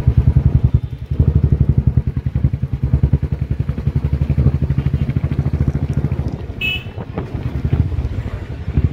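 Small engine running steadily with a rapid, even pulse, with a brief high beep about two-thirds of the way through.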